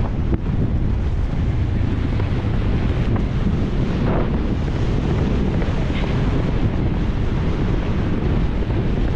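Wind buffeting a GoPro Hero 10's microphone at a horse's full gallop: a loud, steady rumble of wind noise.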